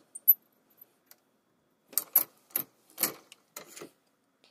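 Small metallic clicks and clinks of fountain pen parts being pressed together on a lathe and lifted out: a sharp tick just after the start, then a run of clicks and knocks about two to four seconds in.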